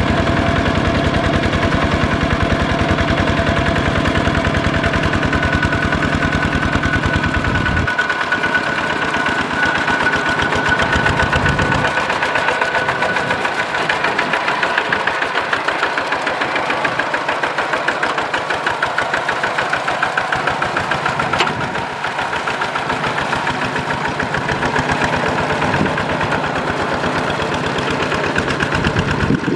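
Kubota RT120 single-cylinder diesel engine on a walk-behind two-wheel tractor, running steadily under load with a rapid, even firing beat as its steel cage wheels puddle a flooded rice paddy.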